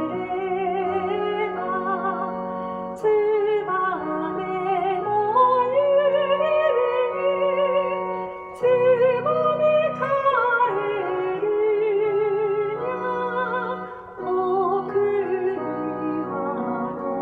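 A woman singing a Japanese children's song (dōyō) in a trained, classical style with a strong vibrato, over piano accompaniment. The phrases are separated by short breaks for breath.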